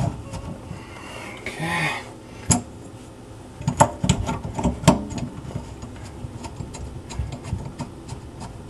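Clicks and knocks of hands and tools working on the metal parts of a kitchen sink strainer basket drain during removal. There are a few sharper knocks around the middle, then a run of light ticks.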